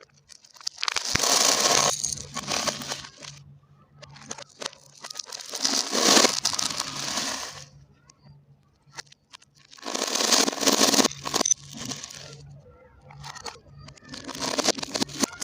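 Marbles rolling and rattling along a marble-run track in four long rushes, each lasting a few seconds, with scattered clicks between them.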